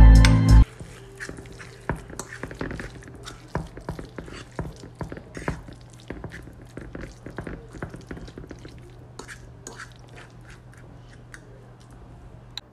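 Background music cuts off just after the start. Then a fork stirs and turns barbecue-sauced pulled chicken in a nonstick frying pan: soft, irregular wet squelches and light clicks of the fork against the pan, over a low steady hum.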